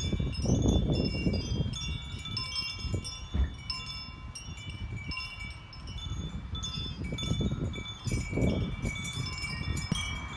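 Hanging metal tube wind chimes ringing, many clear overlapping tones struck and fading one after another, over a low, gusty rumble.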